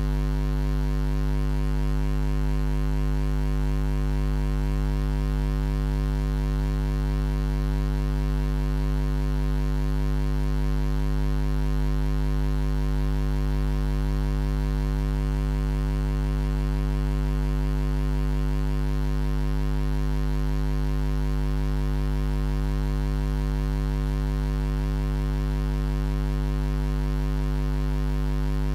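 Steady electrical mains hum: a low, unchanging buzz with a stack of higher overtones above it.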